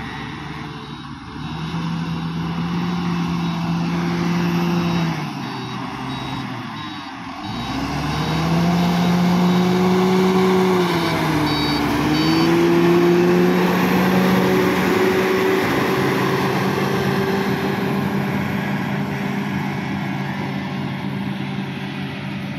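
Diesel engine of a SANY STG230C-8S motor grader running under load on a gravel road, its pitch dipping and rising twice as the load changes. It grows loud as the grader passes close, about halfway through, then fades as it moves off.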